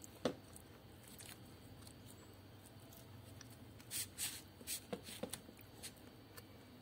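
Light clicks and scrapes of a plastic spoon scooping soft klappertaart custard out of a foil tray: one click just after the start, then a cluster of quick clicks from about four to six seconds in.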